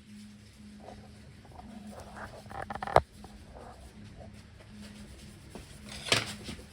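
Light handling sounds of small scrapes and taps, with one sharp click about three seconds in and a short rustle near the end, over a faint steady hum.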